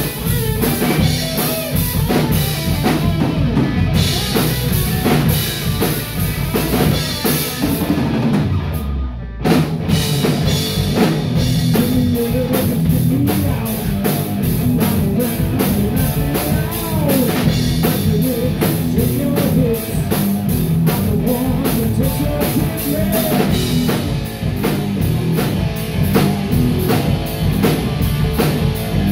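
Live three-piece hard rock band playing an instrumental passage: distorted electric guitar, electric bass and a drum kit. A brief break comes about nine seconds in before the full band crashes back in, and the guitar then plays a lead with bending notes over the steady beat.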